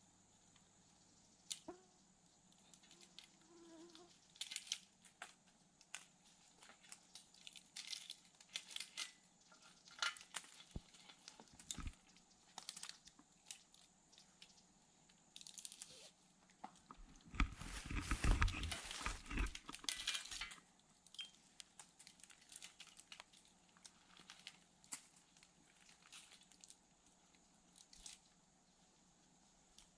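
Faint scattered knocks, clicks and rustling as a lock-on tree stand and its climbing sticks are handled and set up, with a busier stretch of knocking, thudding and rustling about 17 to 20 seconds in.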